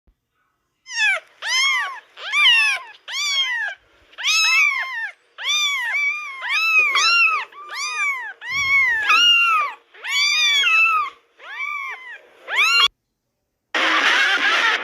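A long string of cat meows, about one to two a second, each rising then falling in pitch, serving as the alarm tone of a joke EAS alarm edit. Near the end the meows stop, and after a brief gap a loud hiss of static-like noise starts.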